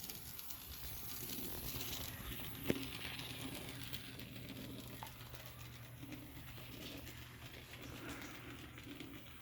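A pigeon cooing low several times, mostly in the second half, over a steady low hum, with one sharp click a little under three seconds in.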